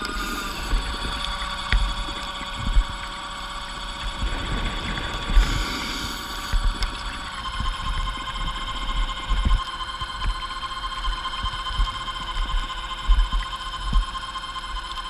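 Underwater scooter (diver propulsion vehicle) motor whining steadily, heard underwater. Its tones drop slightly in pitch about halfway through, over irregular low thumps of water against the housing.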